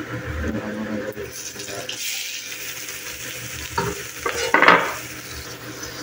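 Chopped onions tipped into hot oil in an aluminium kadai, setting off a frying sizzle that builds from about two seconds in. A few louder clattering bursts come around four to five seconds in.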